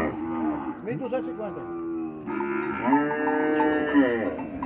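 Penned zebu-type cattle mooing, several calls overlapping, with one long moo held through the second half.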